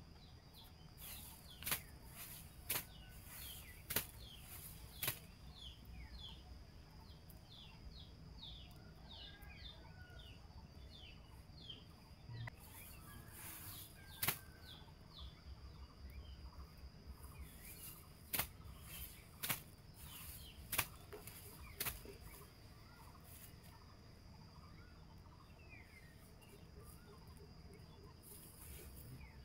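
Quiet rustling of fresh leafy stems being picked over and stripped by hand, broken by about a dozen sharp snaps and clicks. Small birds chirp in quick falling notes through the first half, over a steady high whine.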